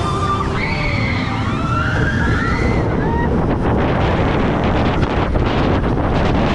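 Roller coaster train running on the track, with a heavy rumble and strong wind rushing over the onboard microphone. In the first few seconds several high, wavering glides rise and fall over the rumble. Then it becomes a steady loud rush with rapid clattering.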